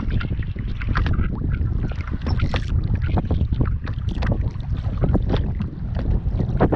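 Wind buffeting the microphone in a steady low rumble, with water lapping and splashing in many small irregular slaps.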